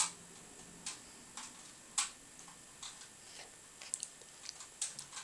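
Light, sharp clicks and taps at irregular intervals, about a dozen spread unevenly through the stretch, over a quiet room.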